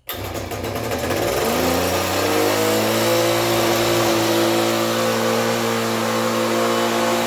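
Old Husqvarna petrol engine firing up as it catches, its pitch rising for about two seconds and then running steadily at high speed.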